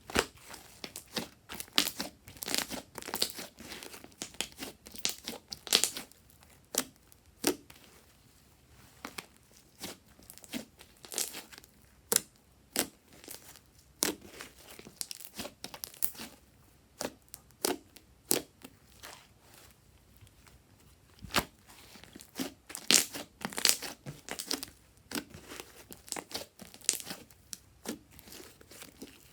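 Fluffy slime being squeezed and stretched by hand, giving runs of sharp crackles and pops as trapped air bursts, in clusters with short pauses between them.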